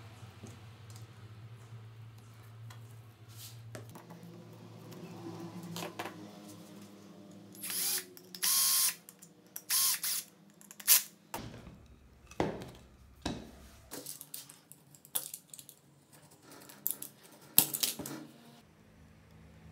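Cordless drill driving small screws into the wooden end of a sanding stick, in three or four short runs of about a second or less each, roughly eight to eleven seconds in. A string of sharp knocks and clicks follows.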